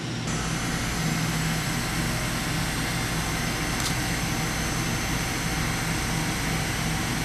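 Eurotech 730-SLY CNC lathe running a machining cycle: a steady mechanical running noise with a low hum and a thin high whine, which step up just after the start. One brief tick about four seconds in.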